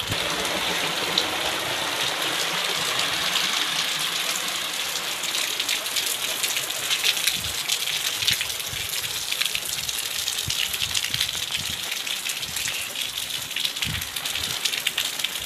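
Heavy rain and rainwater running along a muddy lane: a steady rushing hiss dotted with quick sharp patters.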